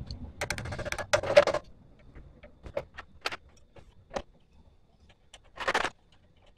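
Metal clinks and clicks from a motorcycle's footrest bar and brake pedal being handled and fitted by hand: a cluster of clinks and rattles in the first second and a half, then single sharp clicks spaced out, and a short scraping rattle near the end.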